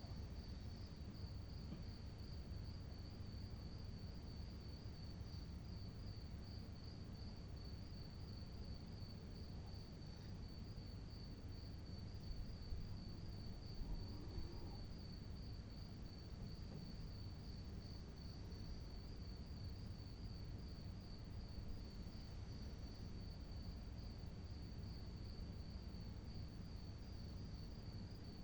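A cricket chirping steadily at night: a high, thin trill in evenly spaced pulses, about three a second, over a faint low background rumble.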